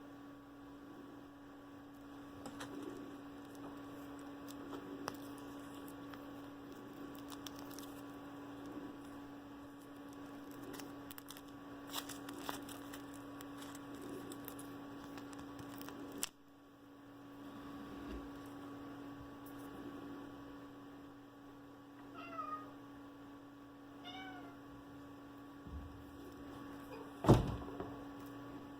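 A steady electrical hum with scattered small clicks and taps of handling. Well into the stretch a cat meows twice, two short calls about two seconds apart, and near the end comes a single loud thump.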